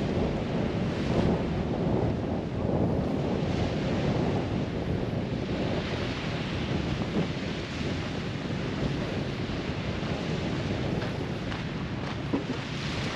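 Wind buffeting the microphone over waves washing onto a sandy beach, a steady rushing that swells and eases every second or two.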